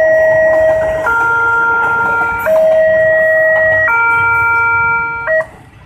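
Railway level-crossing warning alarm sounding an electronic two-tone signal, switching between two chords about every second and a half, over the low rumble of a passing train. The alarm stops about five seconds in as the last coaches clear.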